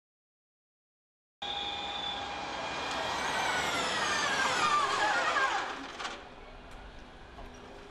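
A Formula E car's electric drivetrain whining as the car drives down the pit lane. The whine cuts in after a second and a half of silence, slides down in pitch and fades about six seconds in.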